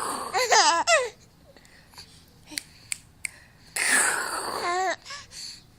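Baby laughing in two bouts, one at the start and one about four seconds in. Each bout is a breathy, wheezy gasp that turns into a high, warbling squeal.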